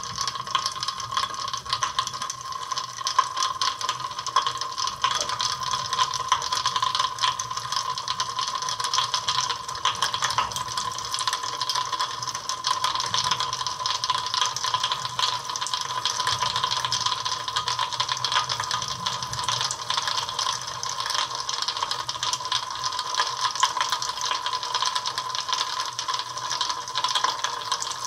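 Rapid, irregular crackling of many tiny pops: blobs of manganese heptoxide igniting in small explosions where they meet the ethanol layer over sulfuric acid and potassium permanganate, the 'chemical thunderstorm in a beaker'.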